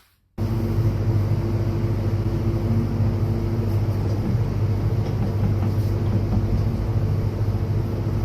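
Steady hum of cold room refrigeration machinery, a low drone with faint steady tones above it, cutting in abruptly under half a second in.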